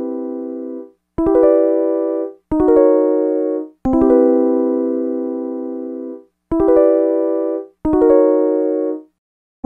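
Background music: keyboard chords struck one at a time, five in all, each held for about a second and a half and then cut off, with short silent gaps between them.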